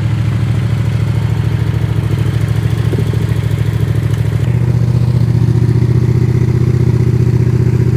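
Yamaha R7 motorcycle's parallel-twin engine idling steadily just after being started, its note shifting slightly about halfway through.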